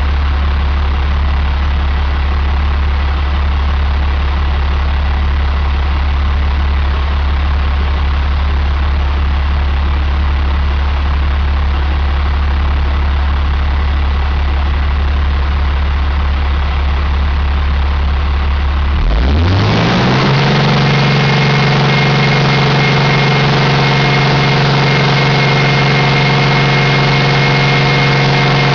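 2001 International DT466E inline-six turbo diesel engine idling steadily, then revving up over about a second two-thirds of the way through and holding at a higher steady speed.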